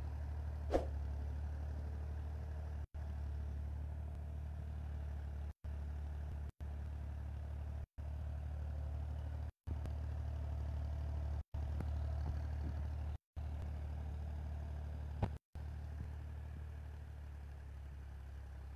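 Massey Ferguson tractor's diesel engine running steadily as it pulls a cultivator through the field, a low even drone. The sound cuts out briefly to silence several times, and there are a couple of short clicks.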